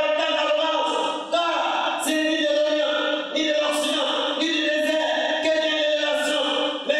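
A man chanting in a sung, drawn-out voice into a microphone, heard through the loudspeakers, holding long steady pitches that break off and resume every second or so.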